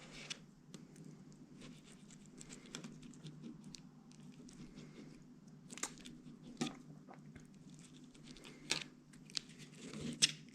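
A knife working on a bluegill fillet on a cutting board, taking out the pin bones: quiet, irregular scrapes and small taps, a few sharper knocks near the middle and end, over a faint steady low hum.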